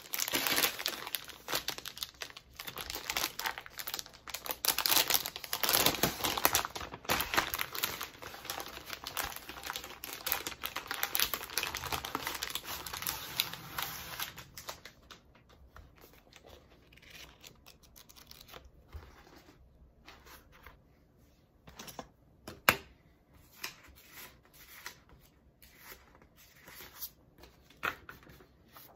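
A clear plastic sleeve crinkling and a stack of paper sheets rustling as they are slid out and handled, dense and loud for about the first fifteen seconds. After that comes quieter handling of single sheets, with scattered rustles and a few sharp taps of sheet edges on a cutting mat, the loudest about two-thirds of the way through.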